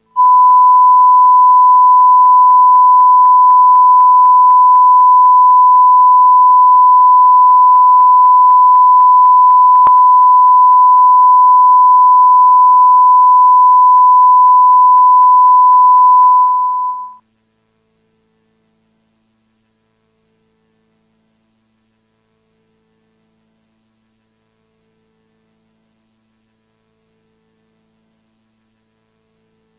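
Steady 1 kHz broadcast test tone sounding with a TV test card, stopping about 17 seconds in; after it only a faint hum remains.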